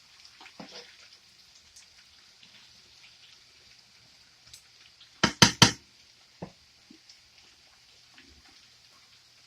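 Food sizzling in a frying pan: a steady faint hiss with scattered small crackles. About five seconds in come three sharp knocks in quick succession, the loudest sounds here.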